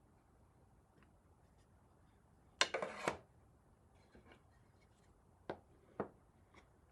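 A short clatter of hard objects knocking together, then two sharp knocks about half a second apart.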